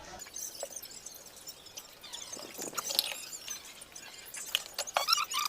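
Repeated high-pitched chirps from small animals, with several sharp clicks, the loudest about three and five seconds in.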